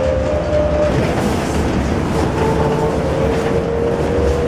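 Bombardier APM 100 rubber-tyred people-mover car running, heard from inside the cabin as it approaches a station: a steady loud rumble and hiss with a thin motor whine that shifts in pitch.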